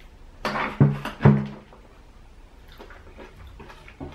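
A large knife cutting the mushy end off a jackfruit pod on a wooden cutting board: a short slicing sound, then two sharp knocks of the blade against the board about a second in. Faint small clicks of chewing follow.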